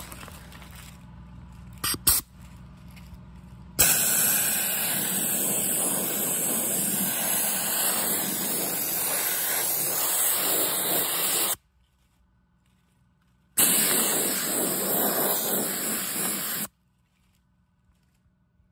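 Handheld gravity-feed soda blaster spraying regular baking soda on compressed air against a painted steel wheel, making a steady loud hiss. A few seconds in, one long burst of about eight seconds starts. It cuts off sharply, and after a short pause a second burst of about three seconds follows and stops. Before the first burst there are a couple of faint knocks.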